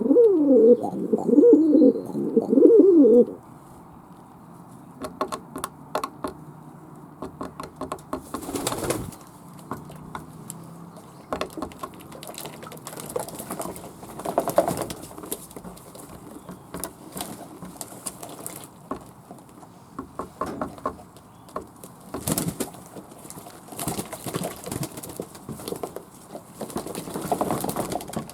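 Fantail doves cooing loudly for the first three seconds or so. Scattered taps and clicks follow, with several brief rushing noises from the birds moving about.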